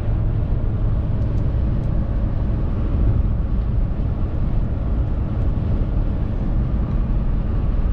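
Steady road and engine noise of a moving vehicle, heard from inside the cab: a constant low rumble with no breaks.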